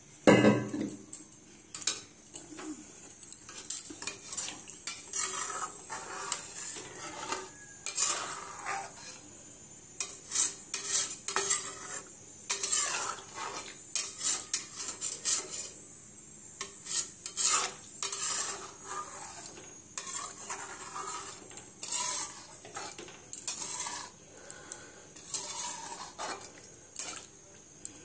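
A slotted steel spatula scraping and clinking against a metal kadai as a watery curry gravy is stirred. The strokes come irregularly, about one a second, the loudest right at the start, over a faint steady hiss.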